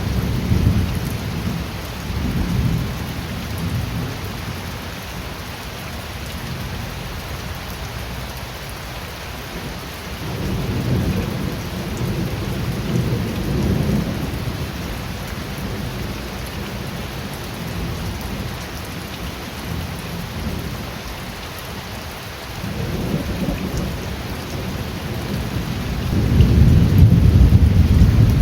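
Steady heavy rain hissing, with rolls of thunder rumbling low that swell three times, the last and loudest near the end.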